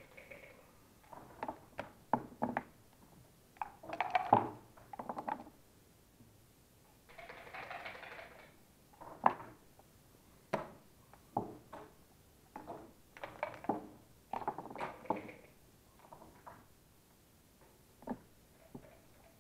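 Backgammon checkers clicking and clacking against the board and each other as they are moved and borne off, with dice rolled onto the board. An irregular run of sharp clicks, with a short rustling slide about eight seconds in.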